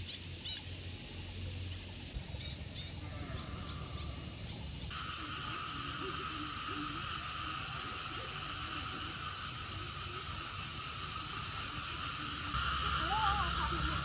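Outdoor rural ambience: a steady high-pitched drone with faint bird calls. The drone drops to a lower pitch about five seconds in, and everything grows louder near the end.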